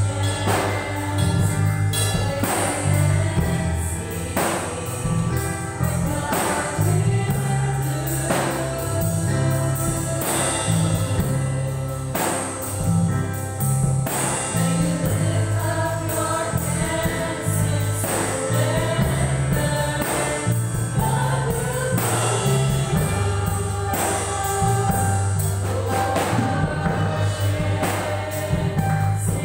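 Live gospel worship song: women's voices singing into microphones over an electronic keyboard and a drum kit, with a moving bass line and a steady beat.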